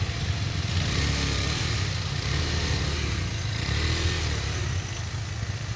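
Motorcycle engines running, a steady low rumble, with faint crowd voices behind.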